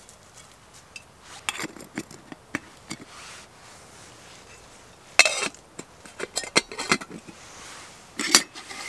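Metal camp cookware clinking: a lid set onto a small cook pot and a metal spork knocking against the pot and lid. Scattered light clicks, with a sharp clank about five seconds in and another near the end.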